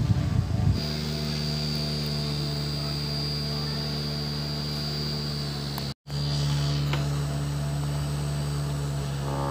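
Micro USB mini fan's small motor running: a rough buzz for the first second, then a steady hum with a thin high whine. The sound drops out for an instant about six seconds in.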